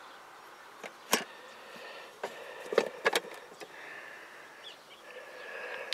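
A few sharp clicks and knocks of handling over a quiet background: one about a second in, two close together around three seconds in, and smaller ones between.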